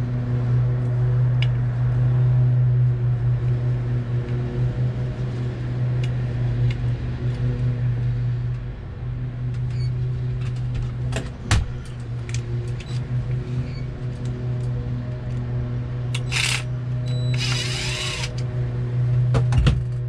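Heavy truck's diesel engine idling, a steady low hum heard inside the cab. Over it come a sharp click about halfway through and two short hisses near the end.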